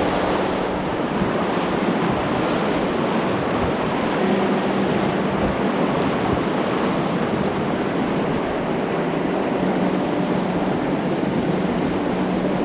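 Steady rushing of river water, an even wash of noise with no break.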